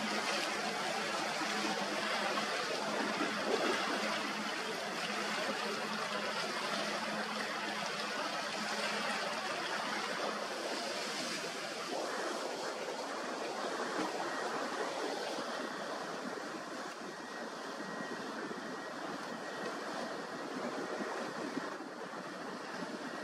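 Steady rush of surf and wind noise, with a faint hum in the first few seconds from the outboard engines of center-console boats running offshore.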